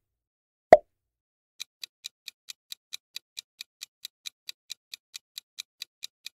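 Quiz countdown sound effects: a single short pop about a second in, then a clock-like ticking at about four to five ticks a second from a second and a half in, marking the answer timer.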